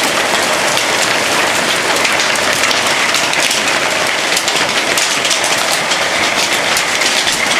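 Hail pelting down on a truck, a dense, steady rattle of countless hailstones striking metal and the ground.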